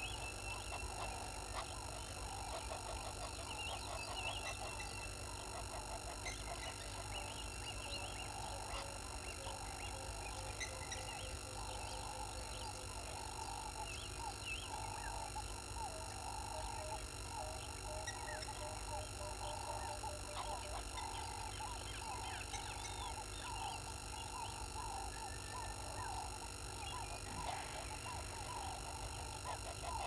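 A dense chorus of wild bird calls: many overlapping short chattering calls that carry on throughout, with higher chirps scattered over them and a short run of evenly spaced lower notes about halfway through. A steady hum runs underneath.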